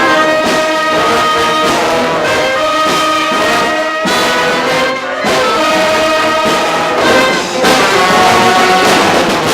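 Brass band of tubas, trombones and other horns playing a funk tune together in full ensemble, with drums keeping a funk groove.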